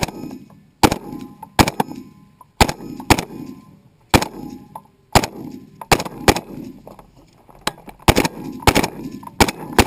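M16 rifle firing 5.56 mm rounds in single shots at an uneven pace, roughly one to two a second, about fourteen in all. Each crack is followed by a short ringing echo.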